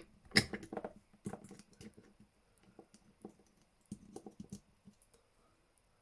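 A screwdriver tip clicking and scraping against the circlip on a Yale lock cylinder while trying to prise it off. It makes quick runs of small metal clicks: the loudest comes about half a second in and another cluster comes around four seconds.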